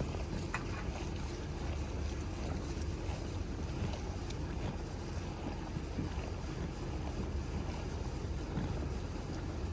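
Steady low rumble of wind buffeting the microphone, with a couple of faint clicks near the start.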